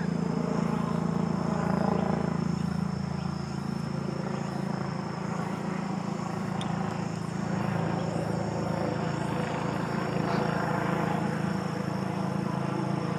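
Steady low engine drone, with a faint high steady trill above it.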